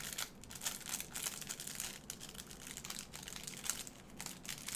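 Packaging being handled and rummaged through: a run of irregular crinkling and rustling crackles.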